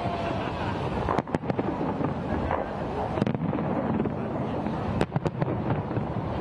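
Aerial firework shells bursting: sharp bangs in three small clusters, over a steady bed of crowd voices.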